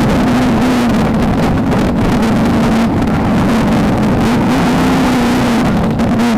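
Off-road desert race car's engine running hard at steady high revs, its pitch wavering only slightly, under a constant rush of wind and terrain noise.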